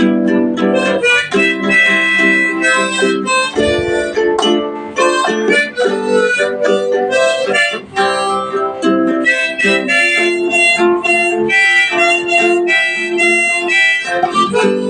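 Harmonica playing a melody over strummed acoustic guitar, an instrumental break with no singing.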